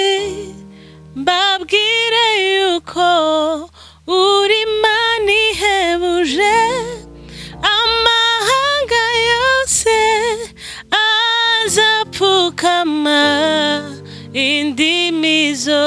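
A woman singing a slow gospel worship song with vibrato, in phrases of a few seconds, over sustained chords on an electronic keyboard.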